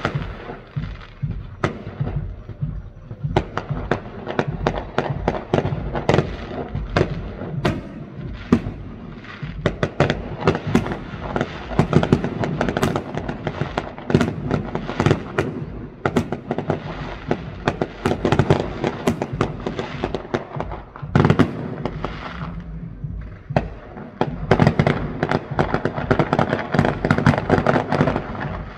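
Fireworks finale: a dense, unbroken barrage of bangs and crackling, many a second, thinning briefly about three quarters of the way through before picking up again.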